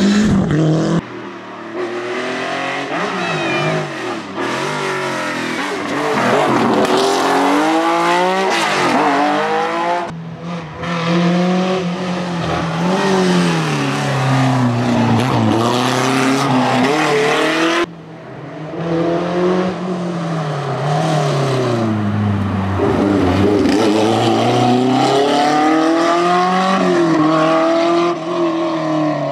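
Historic rally car engines, among them an Alpine A110, revving hard through a twisty tarmac stage. Their pitch rises and falls again and again with throttle, gear changes and braking for bends. The sound jumps abruptly from one car to the next three times.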